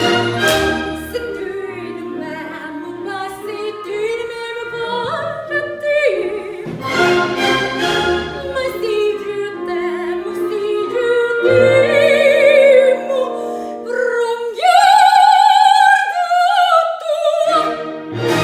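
Soprano singing an operatic aria in full voice with vibrato, ending on a long, loud high note held for a few seconds near the end.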